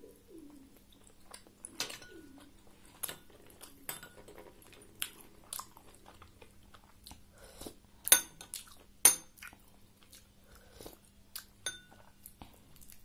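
Close-up chewing and wet mouth smacks while eating a momo, with a metal spoon clinking against a small glass sauce bowl; the two loudest clinks ring briefly about eight and nine seconds in. A faint steady hum sits underneath.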